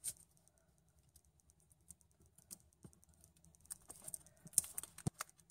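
Faint scattered clicks and taps of fingers handling cardstock and foam adhesive strip on a hard tabletop, getting busier near the end.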